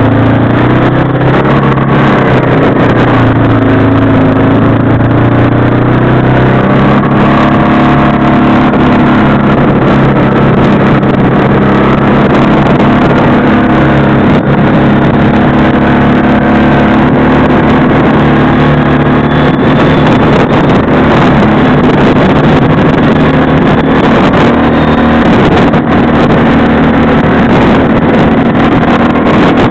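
ATV engine running while riding, loud, its pitch dipping and rising in the first few seconds, then holding fairly steady.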